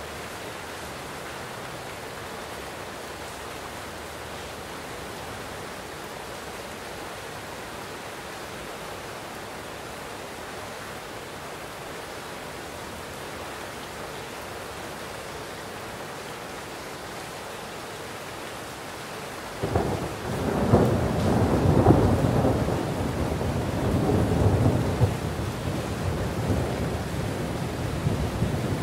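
Steady heavy rain, joined about two-thirds of the way in by thunder that breaks suddenly and then rolls on in several louder surges.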